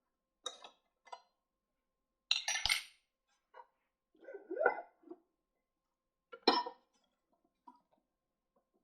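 Small hard objects clinking and knocking on a work surface in a handful of separate strikes, the loudest cluster about two seconds in, with a short rising squeak near the middle.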